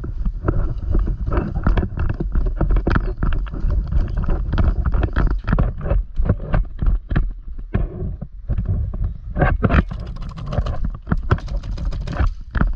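Quick footsteps and gear rattle of a player on the move, with a heavy rumble of body movement and wind against the body-worn mic and irregular sharp knocks.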